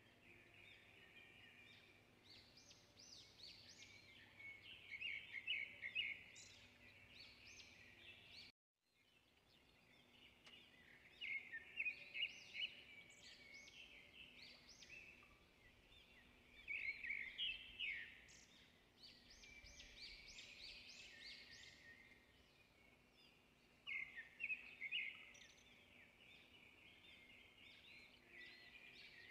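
Faint chirping and twittering of small birds, in repeated clusters of quick calls. The sound drops out completely for about half a second, about eight and a half seconds in.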